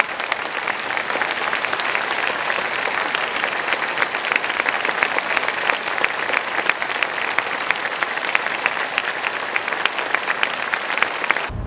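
Large concert audience applauding: a dense, steady mass of hand claps that cuts off abruptly near the end.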